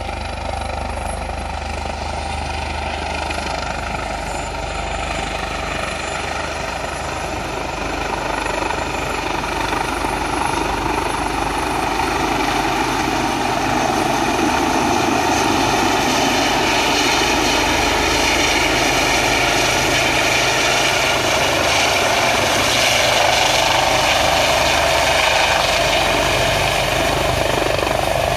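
Eurocopter AS365 Dauphin twin-turbine helicopter flying in to land, its rotor and turbine noise growing steadily louder as it closes in and settles into a hover.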